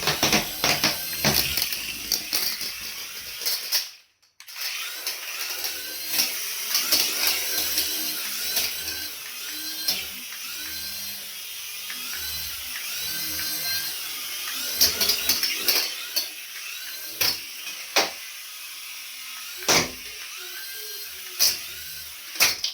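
Small electric motor and plastic gears of a remote-control toy whirring in uneven spurts, with sharp clicks and knocks.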